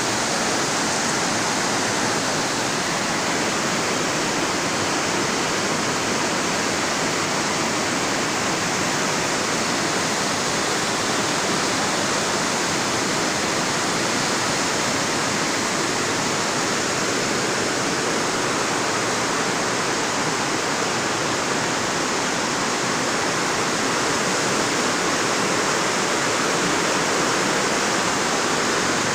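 Mountain river rapids: white water rushing over boulders, a loud, steady rush with no let-up.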